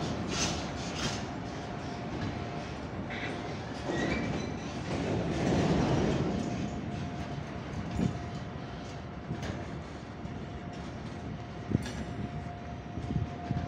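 A freight train of hopper wagons rolling past: a steady rumble of wheels on rail, with scattered clicks and knocks as the wheels cross rail joints, and one sharper knock near the end.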